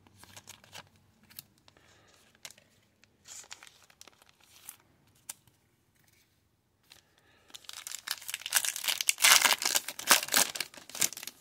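A trading card pack's wrapper being handled, then torn open and crinkled for a few seconds near the end, after light clicks and rustles of card handling.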